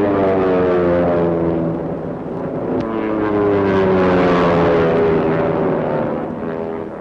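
Twin-engine propeller bomber flying low overhead. The engine drone swells and drops in pitch as it passes, and a second loud pass follows a few seconds later.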